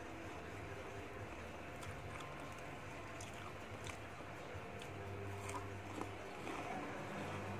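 Faint chewing of soft sweets with closed lips, and a few light clicks as pieces are picked from a plastic cup, over a steady low hum.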